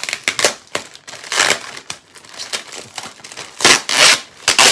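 Clear plastic packaging bag crinkling and rustling as it is handled and opened, in irregular bursts, with the loudest crackles near the end.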